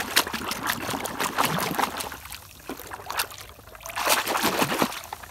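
Pond water splashing and sloshing as a mud-caked toy truck is swished and scrubbed by hand under the surface. It comes in busy bursts, eases off in the middle and picks up again near the end.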